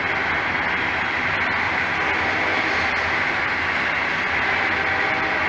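Freight train's tank cars and covered hopper cars rolling slowly past: a steady rumble and hiss of steel wheels on rail, with a few faint clicks.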